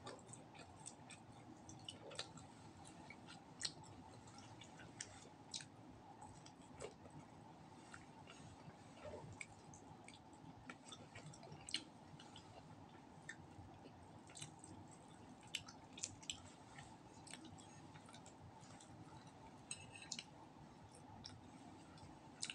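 Faint eating sounds of roast duck eaten by hand: chewing, mouth smacks and small irregular clicks as meat is picked off the bones, over a steady low room hum.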